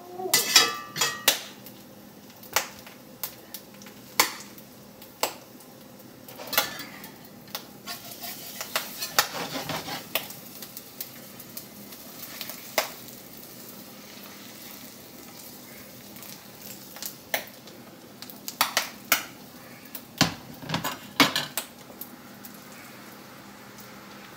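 A metal spatula scraping and clinking against a cast iron skillet as an egg is flipped, with the heavy pan knocking against a glass-top electric stove. It comes as scattered sharp clicks and knocks, with a stretch of frying sizzle in the middle.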